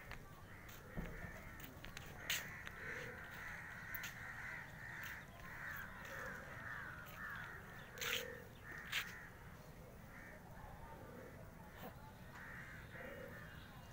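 Birds calling in a busy, steady chatter of short repeated calls, with a few sharp clicks about two, eight and nine seconds in.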